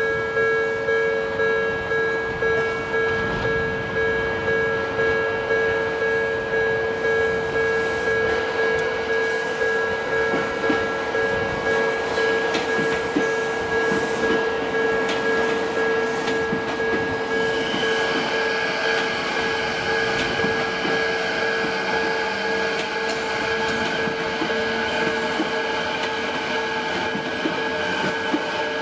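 Japanese railway level-crossing bell ringing in a steady, even rhythm as an electric commuter train approaches and passes. From a little past halfway, the running sound of the passing train joins the bell.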